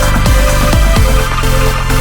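Electronic dance music with a steady kick drum at about two beats a second under sustained synth notes.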